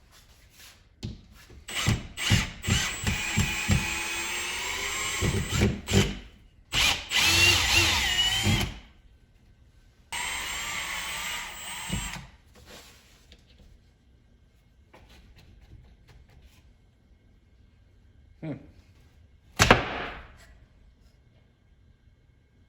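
A power drill running in three bursts, its motor pitch rising and falling as it speeds up and slows under load, with a few short knocks before it and one sharp knock near the end.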